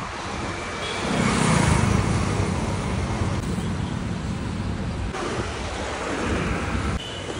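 Road traffic on a city street: steady noise of vehicles, swelling as one passes close about a second in, then shifting abruptly a few times.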